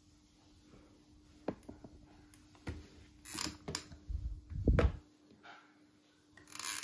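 Brass lamp-frame rods and sockets being handled on a wooden floor: a few light clicks and knocks, a louder dull thump about two-thirds of the way through, and short brushing sounds.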